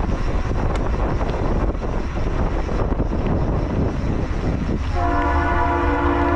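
Steady road and wind noise from a moving car, then about five seconds in a locomotive air horn sounds a sustained chord of several tones: the Norfolk Southern GP38-2 diesel blowing for the crossing.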